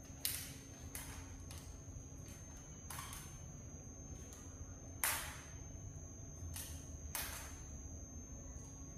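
A patient walking after a total knee replacement: about half a dozen sharp knocks on a hard floor, irregularly spaced a second or two apart, the loudest about five seconds in, over a faint steady high whine.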